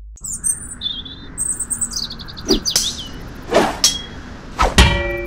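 Outdoor birdsong ambience with small birds chirping, then a series of sharp hits, the loudest near the end ringing on like metal struck against metal: weapon blows landing on armour.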